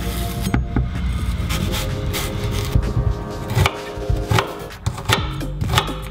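Chef's knife dicing an onion on a wooden chopping board: irregular sharp knocks of the blade meeting the board, coming more often in the second half.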